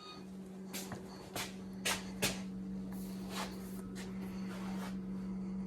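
Steady low hum of a running hydro-air heating system's air handler, with a series of sharp clicks and knocks from handling nearby.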